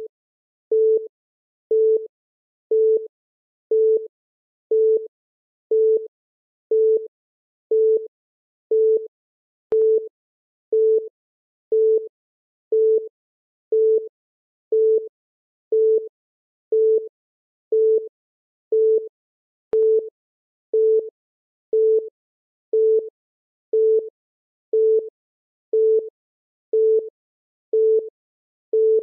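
Electronic countdown-timer beep: a short, steady-pitched beep once every second, marking each second as the timer counts down.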